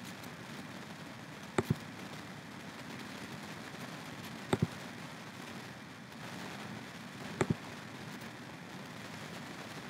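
Computer mouse clicks: three quick double clicks, spaced about three seconds apart, over a steady background hiss.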